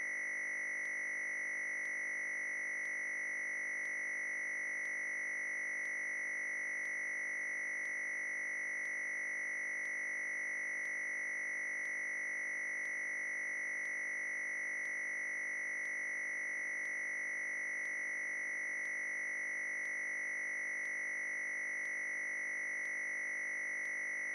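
Steady, unchanging high-pitched electronic whine with several tones held at once and a faint tick about once a second.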